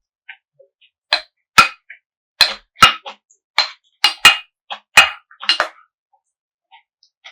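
Close-miked eating sounds: a quick, irregular run of loud, sharp crisp clicks and crunches from about one second in until near six seconds, with softer mouth clicks around them.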